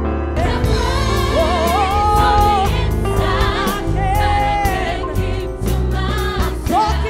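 Gospel praise-and-worship song: sung held notes with a wavering vibrato over a band with bass and drums.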